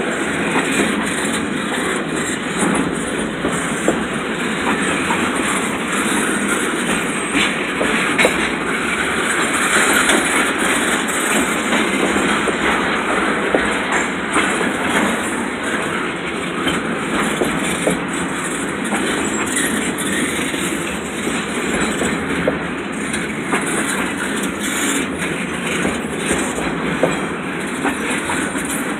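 Container freight train rolling past close by: a steady, loud rumble of steel wheels on rail, with frequent irregular clicks and knocks as the wheels pass over rail joints.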